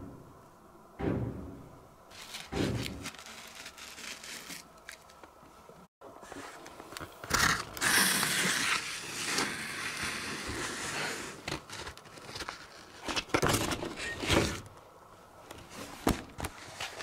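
Horror-film sound effects: two dull thuds, then, after a brief cut-out, a stretch of crackling, scraping noise broken by a few louder knocks.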